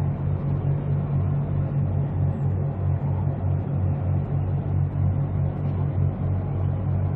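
Container ship ESM AMANDA's diesel engine, a deep, even throbbing that pulses steadily as the ship passes close by.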